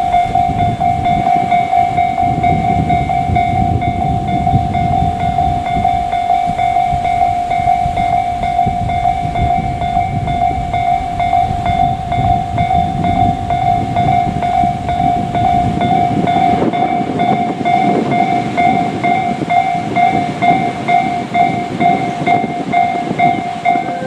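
Japanese level-crossing warning bell ringing in an even, rapid repeat about twice a second, over the rumble and rattle of a JR Freight train hauled by an ED76 electric locomotive rolling through the crossing.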